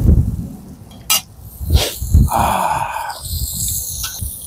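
Metal tongs clicking and clinking against the charcoal grill and a steel plate as grilled meat is moved, with a short ringing clink about two seconds in. Underneath is a gusty low rumble of wind on the microphone.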